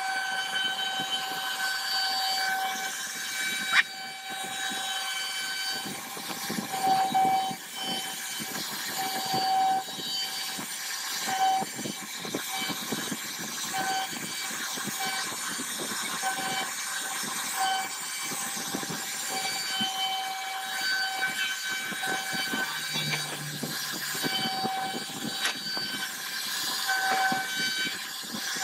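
CNC router spindle running as its bit carves relief patterns into a wooden door panel: a steady whine over the noise of the cut, the tone breaking off and coming back every second or two. A sharp click about four seconds in.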